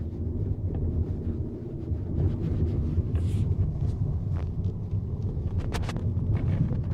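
A steady low vehicle rumble with short creaks and clicks scattered through it, several in quick succession about five and a half seconds in: the creaking of the door locks.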